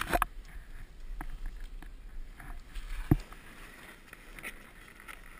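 Handling noise from a GoPro camera in its case: scattered knocks and rubbing, with one loud thump about three seconds in, over a steady low rumble.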